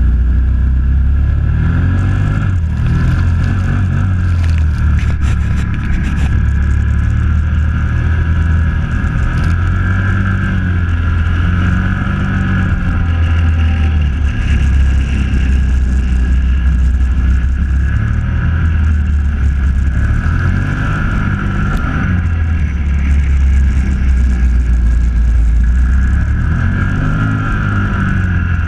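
Quad bike (ATV) engine running close to the microphone as it is ridden, its pitch rising and falling again and again as the throttle is opened and eased off. A few sharp knocks come in the first several seconds.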